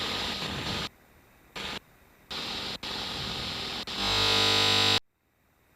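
Aircraft radio static: bursts of hiss that switch on and off abruptly as the receiver squelch opens on carrier with no voice. About four seconds in comes a louder second of buzzing carrier tone, which cuts off suddenly.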